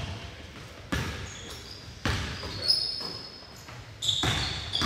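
A basketball bouncing on a gym floor during a game: a few sharp thuds a second or two apart, echoing in the large hall.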